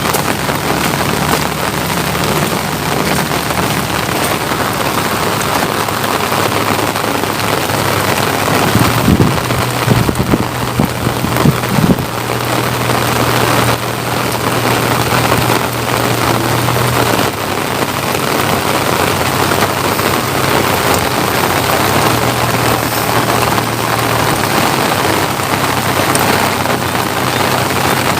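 Steady rain falling, a dense even hiss, with a low hum coming and going underneath and a few louder low thumps about a third of the way in.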